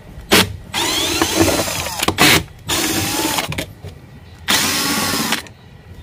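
Cordless drill/driver running in several short bursts, about five pulls of the trigger, with its whine rising and falling in pitch. It is backing out the centre screw that holds the washing machine pulsator to the gearbox shaft.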